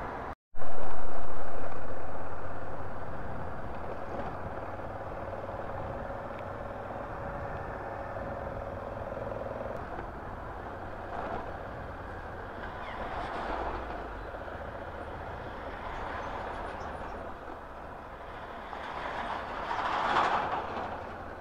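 Road-vehicle noise: a loud sudden sound about half a second in that fades over a couple of seconds, then a steady running noise with two louder swells, about halfway and near the end.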